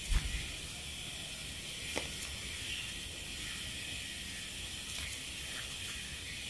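Steady background hiss, with a low thump just after the start and a few soft clicks and crinkles from the plastic sticker sheets as stickers are handled and peeled off.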